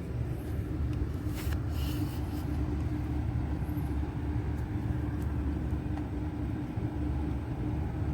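Steady low mechanical rumble with a constant hum, like a running motor, with a few brief clicks about one and a half to two and a half seconds in.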